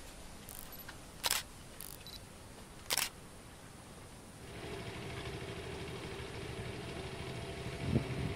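Two camera-shutter clicks about a second and a half apart. From about halfway, a steady low engine hum comes in and runs on.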